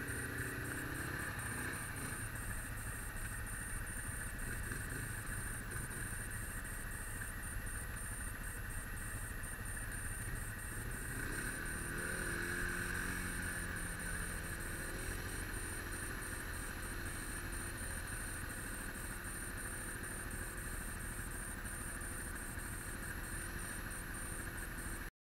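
Off-road vehicle engines (ATV and side-by-side) idling steadily. About eleven seconds in, one engine revs up and runs harder for a few seconds before settling back.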